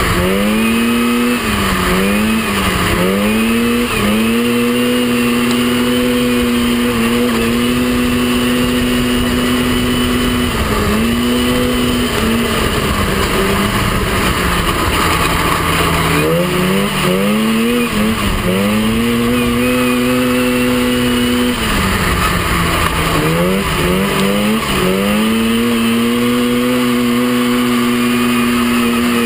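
Mini off-road buggy's engine heard onboard at racing speed, holding a steady high pitch on the straights and dropping then climbing back several times as the driver eases off for turns and accelerates out, over a steady rush of wind and track noise.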